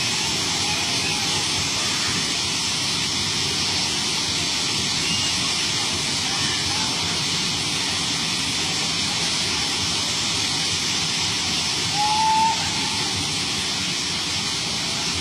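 Steady, loud rushing of water and rain as the floodwater churns. About twelve seconds in, a short higher tone rises briefly above it.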